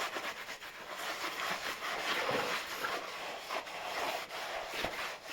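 Irregular scuffing strokes of rubbing over the surface of an acrylic painting as it is worked with sandpaper and an oil mix.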